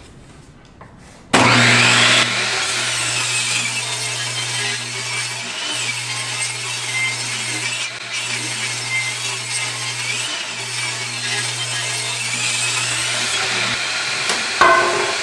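Table saw switched on about a second in, then ripping a pine 2x6 lengthwise to trim off its rounded edge, with a steady motor hum under the blade's cutting noise. There is a brief louder burst near the end.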